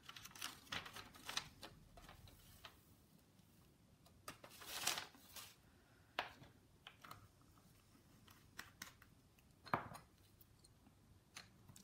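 Faint scattered clicks, taps and short rustles of hands handling small craft tools and materials on a work table, with a longer rustle about four seconds in.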